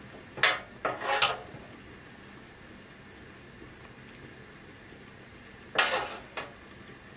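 Metal spoon clinking against a metal oven tray and wire rack: three quick clinks about a second in, and two more near the end.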